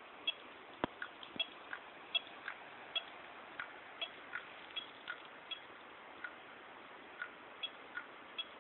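New Seagate ST9320421ASG 320 GB 2.5-inch laptop hard drive clicking repeatedly and unevenly, about two or three light ticks a second over a steady hiss. This is a clicking that appeared under heavy disk load, which the owner hopes a firmware update has cured.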